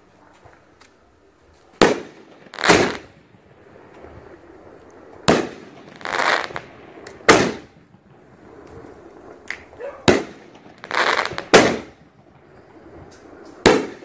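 A 500 gram, 9-shot consumer fireworks cake firing: sharp reports as shots leave the tubes, several followed about a second later by a longer bang as the shell bursts overhead.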